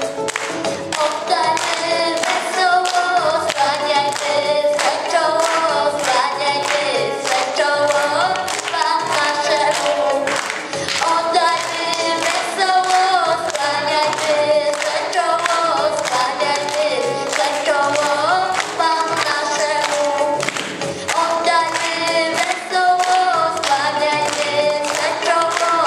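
A group of children singing a song together in unison, with a steady beat of hand clapping along.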